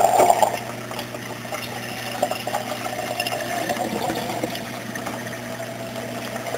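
Water draining through an aquarium overflow box into a Durso standpipe. It is loud in the first half second, then drops to a quieter, steady trickle once the standpipe is seated: the standpipe is quieting the overflow's gurgling.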